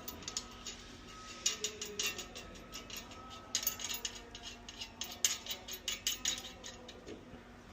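Rapid clicking and clinking of tools or hardware being handled, in two runs: one about a second and a half in, and a longer one from about three and a half to six and a half seconds. A faint steady hum runs underneath.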